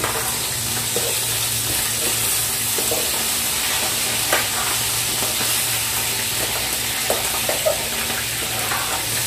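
Frying in a pan: a steady sizzling hiss of hot oil, with a few light clicks and knocks scattered through it.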